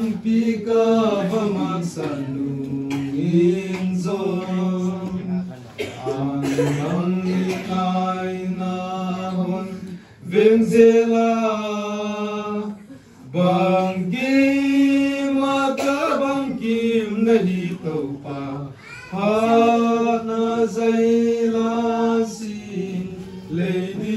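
Men's voices chanting together in long held notes that step up and down in pitch, in phrases of a few seconds broken by short pauses.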